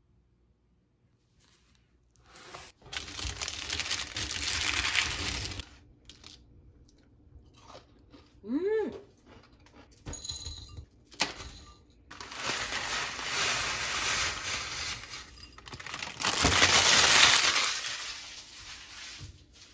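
Homemade baked granola crunching and crackling on parchment paper as it is broken up by hand and moved into a glass bowl, in two long bouts with a few short crackles between.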